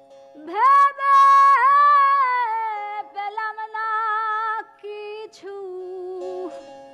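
A woman sings a Bengali Baul song. Her voice slides up into a long high held note about half a second in, then moves down through lower sustained phrases, over a faint steady drone.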